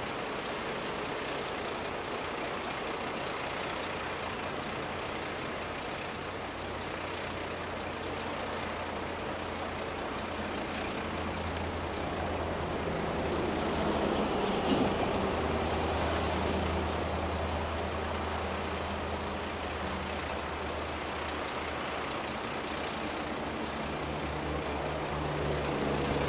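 Sanriku Railway diesel railcar idling while stopped on the bridge, a steady low engine hum heard from a distance under a broad hiss. The hum grows a little stronger about halfway through.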